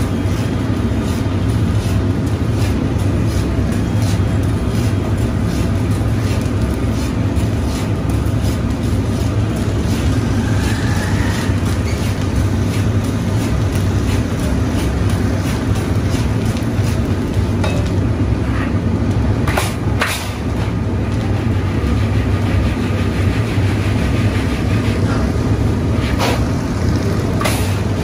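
Black chickpeas dry-roasting in a large iron pan, rattling and scraping as they are swept round with a long-handled metal scraper, over a steady low roar of the furnace. A few sharp knocks come in the second half.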